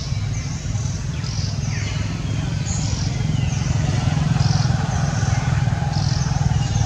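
A motor engine running steadily with a low hum that swells slightly midway. Repeated high, short falling chirps sound over it.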